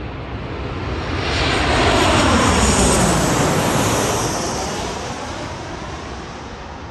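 Twin-engine jet airliner passing low overhead on final approach to land, gear down. Its engine noise swells to a peak about two to three seconds in, with a whine that falls in pitch as it goes past, then fades.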